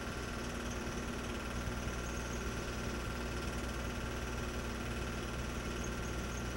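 Home-movie film projector running steadily, a constant mechanical whirr.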